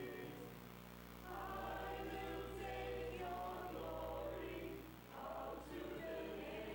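Choir singing in held, sustained phrases, with short breaks between phrases about a second in and about five seconds in.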